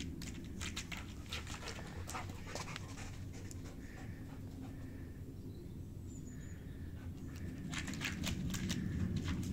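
A Belgian Malinois panting hard, with quick scratchy clicks of its claws scrabbling on pine bark as it climbs the tree. The scrabbling thins out in the middle and comes back thick near the end as it leaps up again.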